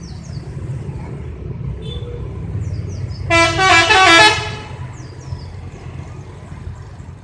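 Bus telolet horn, a multi-tone horn set, playing a quick run of stepping notes for about a second, over the steady low rumble of the bus's engine.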